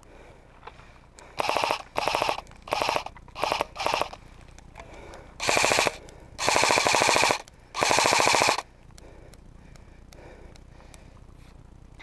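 Airsoft rifle firing on full auto in eight bursts of rapid clicks. Five short ones come in quick succession over the first few seconds, then three longer ones about halfway through, the last two lasting about a second each.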